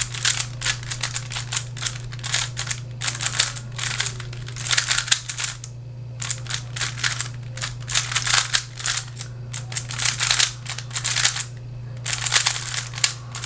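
Giiker Super Cube, a plastic Bluetooth smart 3x3 puzzle cube, being turned fast in a speedsolve: rapid runs of clicking and clacking as the layers turn, with short pauses about six seconds in and again near the end.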